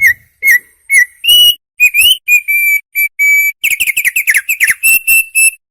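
Opior songbird singing: a loud, fast string of short clear whistles, a few rising or dipping, then a quick run of falling notes and three even notes to finish.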